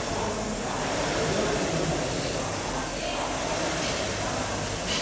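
Concept2 rowing machine's fan flywheel whooshing as it is rowed hard, the rush of air swelling and easing with each stroke about every two seconds.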